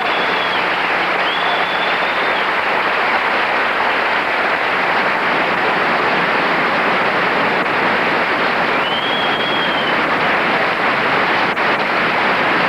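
A large audience applauding steadily at the end of a song, with a high held whistle about a second in and another about nine seconds in.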